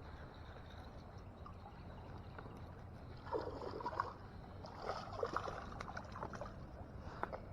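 Creek water running steadily, with irregular splashing and sloshing and a few sharp knocks from about three seconds in.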